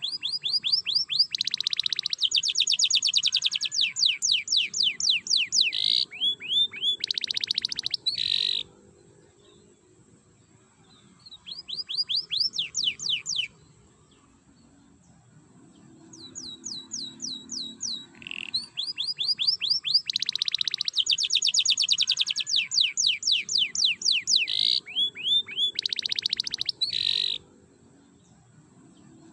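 Domestic canary singing in the rattling 'ngerek' style: long runs of fast trills and rolls of rapidly repeated descending chirps. The song breaks off about a third of the way in, gives one short trill, then resumes and stops again shortly before the end.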